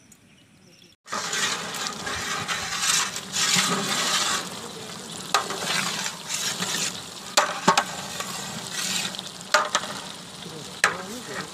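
Beef sizzling in a large aluminium degh as it is stirred with a long metal spatula, starting suddenly about a second in, with the spatula scraping and knocking against the pot several times.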